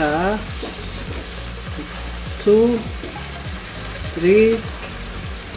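Hot water in a cooking pot hissing at a simmer while brown sugar is spooned in and stirred. Three short pitched sounds, about two seconds apart, stand out above the hiss.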